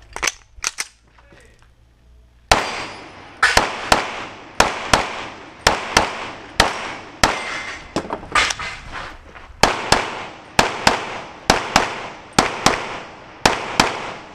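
A compensated IPSC race pistol with a red-dot sight fired through a fast course of fire: more than twenty sharp shots, many in quick pairs, each with a short echo, starting about two and a half seconds in. Before the first shot come a few light clicks as the pistol is picked up from the table and readied.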